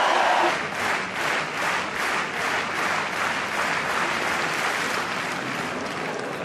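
Stadium crowd clapping in unison, about two claps a second, after a louder crowd noise drops away about half a second in; the clapping fades toward the end.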